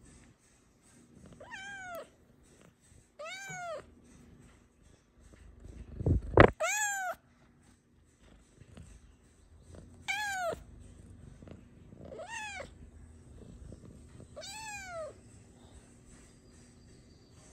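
Snow Lynx Bengal cat meowing six times, short calls about every two seconds, each rising then falling in pitch. A loud bump comes just before the loudest meow, about six seconds in.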